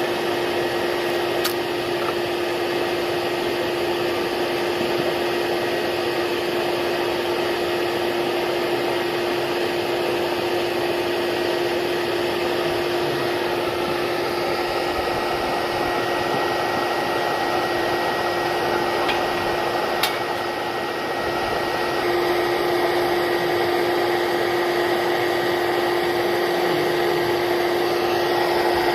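A small motor running steadily, giving a constant hum with a noisy whir over it. It gets a little louder about 22 seconds in.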